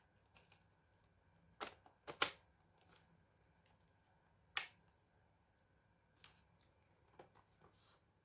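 A handful of sharp clicks and knocks. The loudest is a close pair about two seconds in, then a single strong knock a little past halfway, and a few fainter taps near the end.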